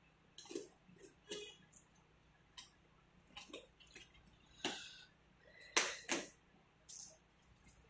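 Box cutter slitting the packing tape and cardboard on the end of a cardboard carton: a string of short scrapes and crackles, the loudest two past the middle.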